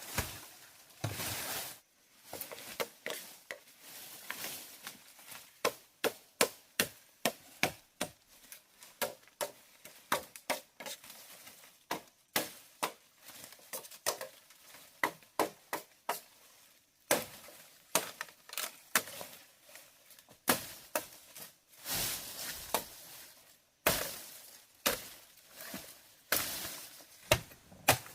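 Repeated sharp chopping strikes, often about two a second, in runs broken by short pauses.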